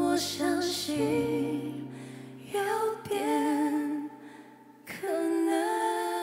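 Female vocals singing slow, long-held phrases of a ballad over sustained low accompaniment notes, with a short break about five seconds in before a new held note.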